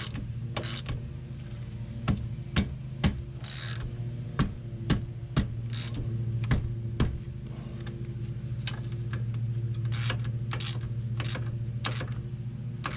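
Hand socket wrench ratcheting in short strokes as the wheel bearing hub's mounting bolts are tightened, a run of sharp clicks, with several louder ones about half a second apart in the middle. A steady low hum runs underneath.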